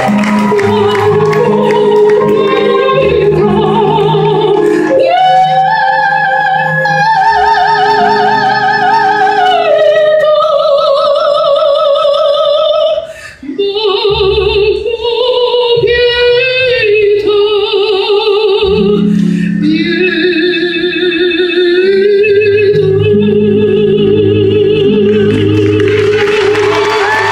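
Male soprano singing long, sustained operatic phrases with vibrato in a high register over musical accompaniment, with a brief break about thirteen seconds in.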